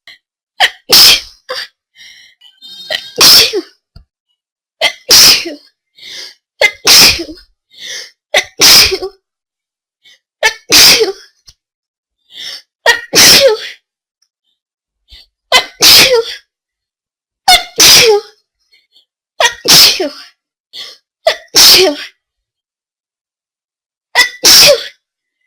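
A person sneezing hard over and over, about a dozen loud sneezes in a row roughly every two seconds, with short quieter in-breaths between them.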